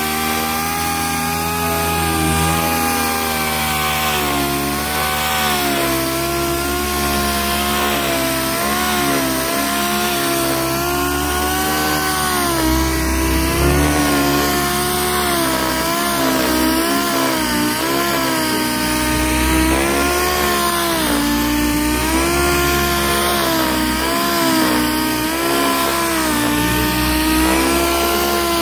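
Pneumatic random-orbital sander running continuously against the sheet-metal edge of a car roof, sanding back the rusted area above the windshield opening. Its whine wavers up and down in pitch as the pressure on the pad changes.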